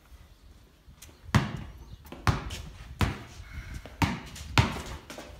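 A basketball is bounced five times, about once a second, each bounce a sharp thump echoing in a corrugated-iron shed.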